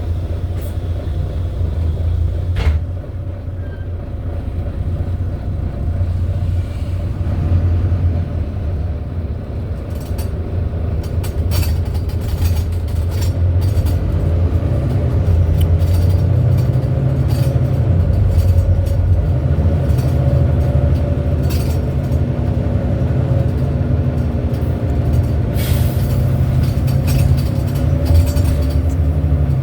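Volvo B9TL bus's six-cylinder diesel engine and drivetrain heard from on board, running under way with a deep low rumble and engine tones that rise and fall as the bus changes speed, with scattered light rattles and clicks.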